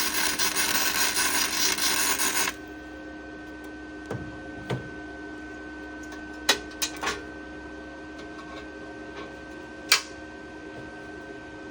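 Beaver MIG 270 welder running gasless flux-core wire and laying a short tack weld: a dense, even crackle that cuts off sharply about two and a half seconds in. After it comes the welder's steady hum, with a few scattered clicks and metal taps.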